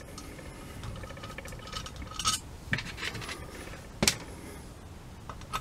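A screwdriver and small metal parts clicking and scraping against a Rochester two-jet carburetor body, with a few louder clinks and one sharp click about four seconds in.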